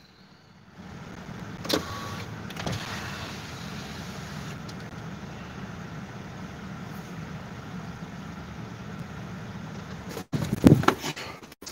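Inside the cabin of a four-wheel-drive Chevrolet crawling over a rough dirt track: steady low engine and tyre rumble. There is a click about two seconds in and a brief louder burst of noise near the end.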